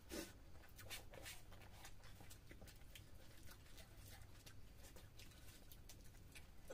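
Faint eating sounds made by hand: irregular small wet clicks of chewing, lip-smacking and fingers working rice and katla fish-head curry on plates, with one slightly louder mouth sound just after the start.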